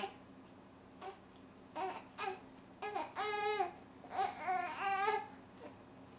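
Four-week-old baby fussing while lying face-down: a few short grunts, then from about three seconds in two longer whiny cries that waver up and down in pitch.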